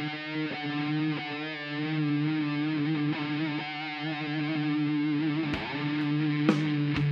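Background music: distorted electric guitar sustaining long held notes, with a few sharp hits near the end.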